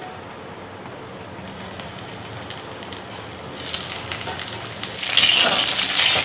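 Small whole slit brinjals (eggplants) sizzling and crackling as they go into hot oil in a clay pot. The sizzle starts faint and grows louder in steps as more are added, loudest near the end.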